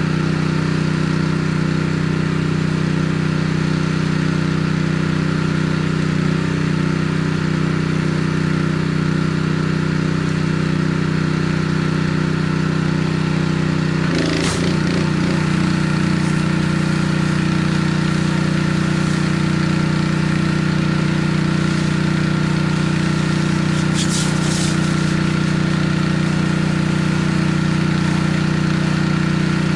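Pressure washer's gas engine running steadily, its note shifting slightly about halfway through, with brief hissing bursts near the middle and later on.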